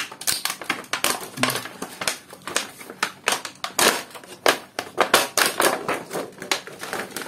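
Clear plastic packaging crinkling and crackling as it is pulled open by hand and a card insert is slid out: a dense, irregular run of crackles.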